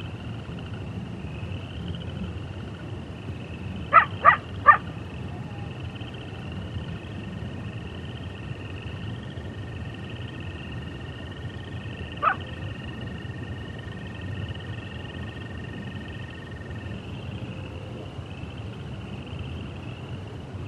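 Coyote giving three quick sharp yips about four seconds in and one more yip around twelve seconds, over a steady trilling chorus of frogs and toads. A toad's single long, even trill runs through the middle of the stretch.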